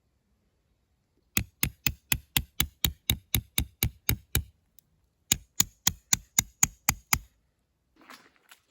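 Rapid, even knocking: about a dozen sharp strikes at roughly four a second, a pause of about a second, then eight more at the same pace.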